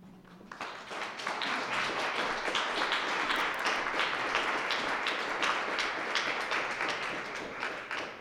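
Small audience applauding, many hands clapping at once. It builds within the first second and tapers off near the end.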